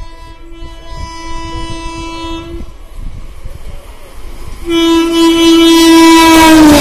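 WAP7 electric locomotive sounding its horn twice as it approaches. The first long blast stops about two and a half seconds in. A louder one starts near the middle and drops in pitch at the end as the locomotive draws level, with the train's rumble rising beneath it.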